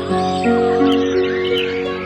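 Soft instrumental music of held notes that change every half second or so, with songbirds chirping over it in quick, twisting phrases.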